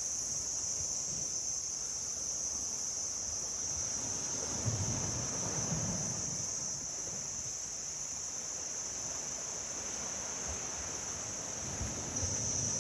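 Steady, high-pitched drone of a tropical insect chorus, unbroken throughout, with a low rumble coming and going beneath it.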